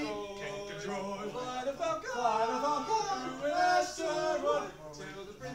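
Men singing a song, holding notes that rise and fall in pitch.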